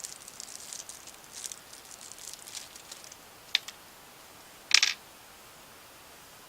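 Small plastic and metal parts handled by hand: light crackling and rustling, then a sharp click, then a short, louder rattle a little before five seconds in. These are the sounds of a 120mm fan filter and its screws being fitted to a PC case.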